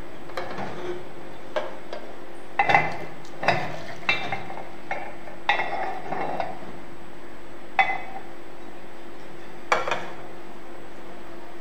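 Metal kuih bakar moulds being stacked and a stainless saucepan handled: about eight sharp metallic clinks and clatters at irregular intervals, over a faint steady hum.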